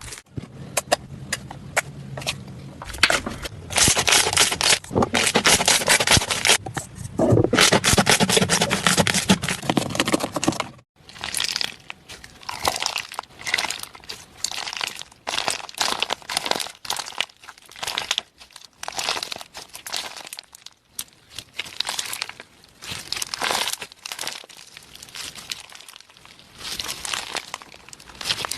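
Slime being squeezed and pressed by hand, with dense crackling and popping. About eleven seconds in it cuts to another take, where the slime is squished in short, separate handfuls.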